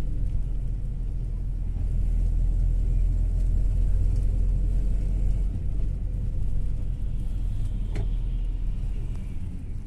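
Steady low road rumble heard from inside a moving vehicle's cabin: engine and tyre noise while driving. A single faint click about eight seconds in.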